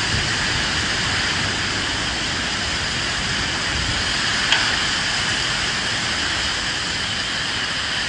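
Steady rain falling, an even hiss, with one sharp tick about four and a half seconds in.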